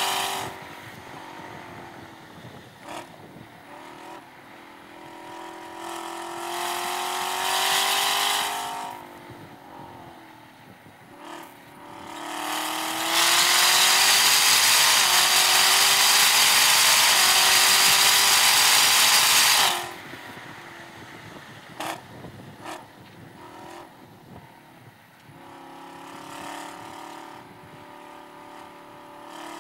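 Supercharged LT4 V8 of a Chevrolet Camaro ZL1 1LE heard from inside the car on a track lap. It drops to a low level as the throttle is lifted for braking. It then climbs in pitch under throttle twice; the longer, loud pull lasts several seconds and cuts off sharply, after which the engine runs low at part throttle through a tight corner.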